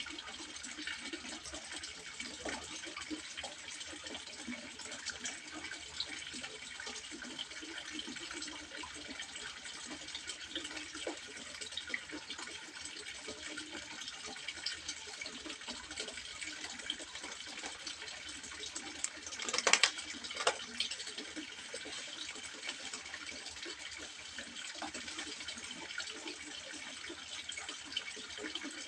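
Water trickling and splashing steadily into a fish pond, with many small droplet splashes. About two-thirds of the way in come two brief louder splashes.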